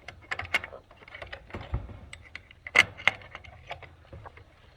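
Chickens scrambling out of the coop: a run of irregular clicks and knocks, with one louder knock a little under three seconds in.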